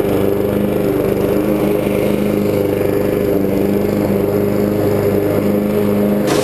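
Honda walk-behind lawn mower's single-cylinder four-stroke engine running steadily as it cuts grass.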